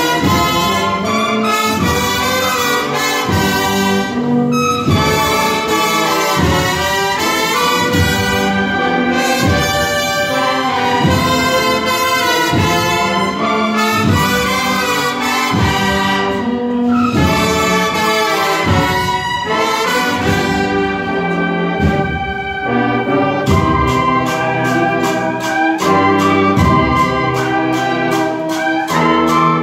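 A brass band plays a slow Holy Week processional march, with trumpets and trombones over a regular beat. The beat becomes quicker about three-quarters of the way through.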